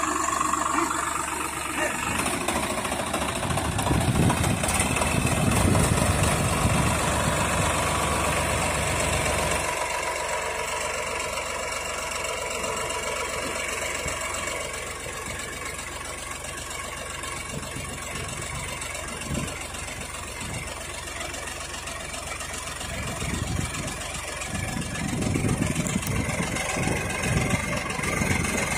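Swaraj 960 FE tractor's three-cylinder diesel engine running under load as the tractor tries to drive its rear wheel out of deep mud. It runs hard from about two seconds in until about ten seconds, eases to a lower, steadier run through the middle, then picks up again near the end.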